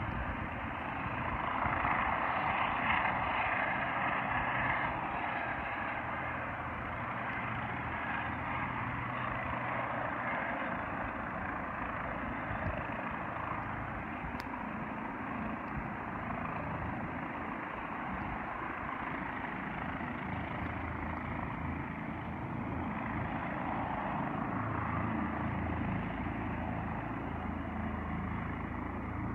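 Rescue helicopter flying at a distance: a steady drone of rotor and engine, a little louder about two to four seconds in, with a low hum that grows stronger near the end.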